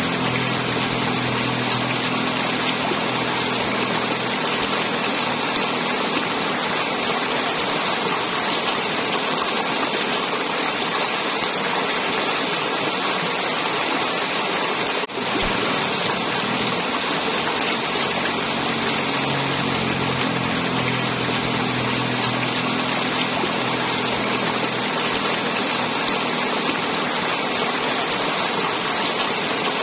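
River water flowing and gurgling: a steady rushing that dips briefly about halfway through.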